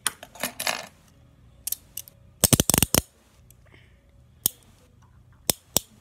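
Metallic clicks of hinged handcuffs being worked by hand: scattered sharp clicks, with a quick run of clicks about two and a half seconds in.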